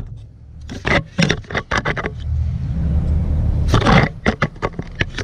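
Short metallic clicks and scrapes in two clusters as a stainless braided clutch line and its fittings are handled and fitted into place, over a steady low hum.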